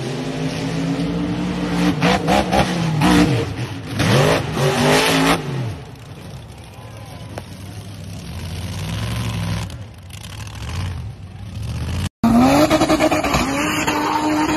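Off-road vehicle engines revving hard at high rpm, their pitch swooping up and down, with loud rough noisy stretches in the first half. Near the end another engine is held high and revving as its tires spin.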